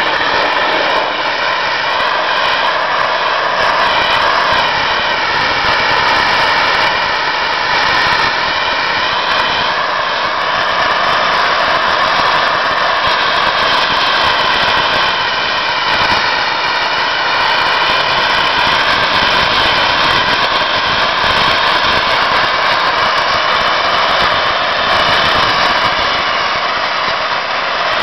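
Sandblaster nozzle blasting abrasive grit with compressed air to strip paint from a steel locomotive cab: a loud, steady, jet-like hiss, with faint steady whistling tones running through it.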